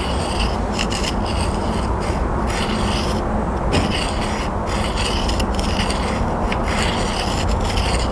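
Knife blade being dragged across a coarse 80-grit sharpening stone in repeated back-and-forth strokes: a gritty, rasping scrape, done on purpose to dull the edge before sharpening.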